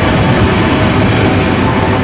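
A train passing close by: a loud, steady rumble of wheels on rail.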